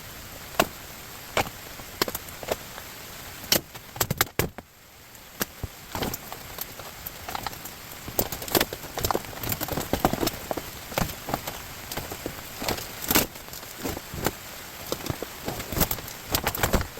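Irregular clicks and knocks of hard objects being handled, scattered throughout over a steady background noise, with a brief lull about four and a half seconds in.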